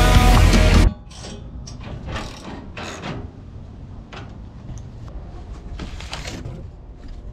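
Loud music over a car's engine and tyres cuts off abruptly under a second in. Then comes a series of short scrapes, clinks and rustles as an intercooler and polished intercooler pipes are handled and lifted from their paper packing in a cardboard box.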